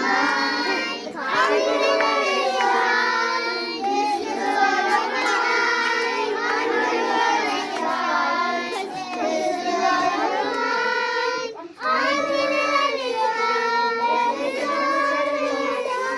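Group of children singing a song together, with a short break about two-thirds of the way through.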